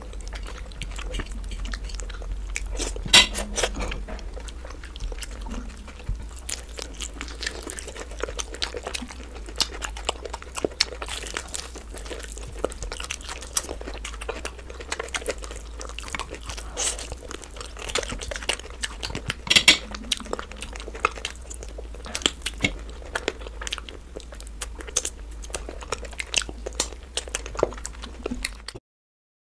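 Close-miked biting, crunching and chewing of a spicy, sauce-coated fried chicken lollipop, with a fork clicking on the plate. There are two louder clicks, about 3 and 20 seconds in, over a steady low hum, and the sound cuts off abruptly just before the end.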